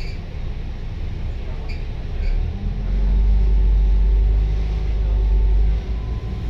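Volvo B9TL double-decker bus's Euro 3 six-cylinder diesel engine running under way, heard inside on the upper deck as a steady low rumble. The rumble grows louder about two and a half seconds in and falls back shortly before the end.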